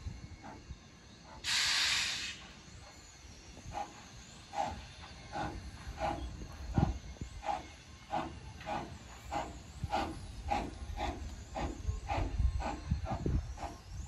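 Steam locomotive pulling away, its exhaust chuffing in a beat that quickens from under two to about two and a half chuffs a second. A loud hiss of steam lasting about a second comes about a second and a half in.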